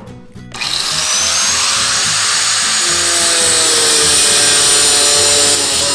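Angle grinder with a cut-off disc cutting into a metal part of a Zipp 808 bicycle rear hub. It starts about half a second in and grinds steadily with a high whine, and its pitch sinks a little as the disc bites under load.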